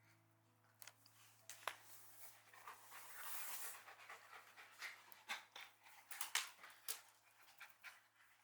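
A dog panting faintly, with short sharp clicks scattered throughout.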